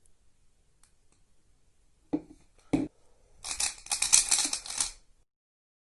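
A YuXin Little Magic 3x3 speed cube, freshly lubed with Cubicle Labs Mystic, being handled: two sharp plastic clicks about two seconds in, then a quick run of turns, a dense clicking and scraping of plastic pieces lasting about a second and a half.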